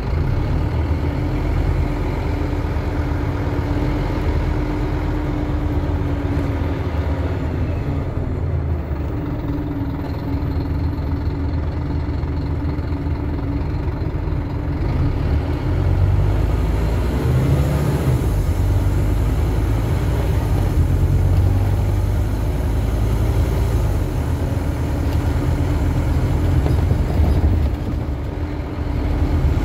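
Scania OmniCity (CN230UB) bus's five-cylinder diesel engine and drivetrain running as the bus drives, heard from inside the passenger saloon. It grows louder about halfway through, with a brief dip in level near the end.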